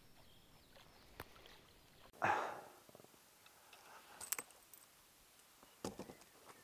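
Faint noises of fishing tackle being handled aboard a packraft: a short rush of noise about two seconds in, then a few sharp clicks and knocks from the spinning rod, reel and lure.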